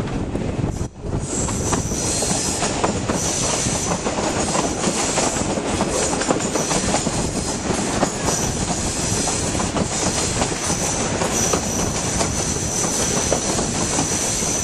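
A Class 37 diesel-hauled passenger train running on curving track, heard from an open coach window: steady rumble and clatter of the wheels on the rails. A high, steady wheel squeal on the curve comes in after a few seconds and grows strongest near the end.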